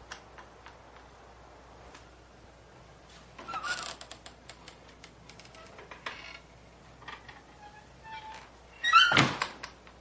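Wooden screen door on metal spring hinges creaking as it is pulled open a little past three seconds in, with light clicks and rattles, then closing with a loud thunk about nine seconds in.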